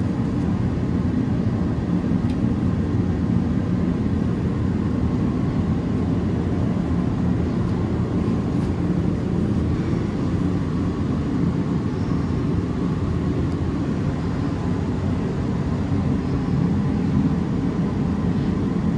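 Steady, unbroken low rumble of a running machine, with a faint steady whine above it.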